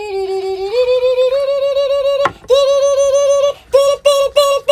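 A high-pitched voice singing a wordless tune of held, wavering notes, with a click a little over two seconds in and short breaks between the notes near the end.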